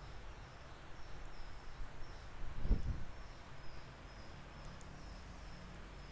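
Quiet room ambience with faint, short, high chirps repeating about twice a second. A low rumble of the handheld phone moving runs underneath, with a dull thump about three seconds in.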